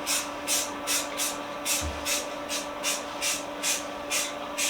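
Aerosol spray can of primer spraying in short, quick bursts, about two and a half a second: a light first coat being dusted on over bare metal.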